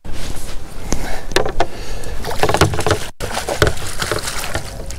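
Water splashing and irregular knocks and clatter against the side of a fishing boat as a line-tangled pike is scooped into a landing net, with a brief break in the sound about three seconds in.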